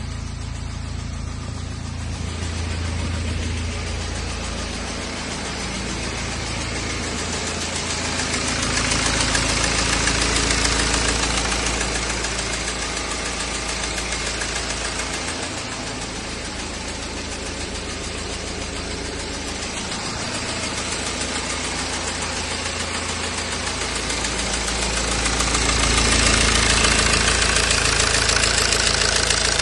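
BMW E92 320d's N47 four-cylinder diesel engine running with a ticking noise, getting louder twice for a few seconds.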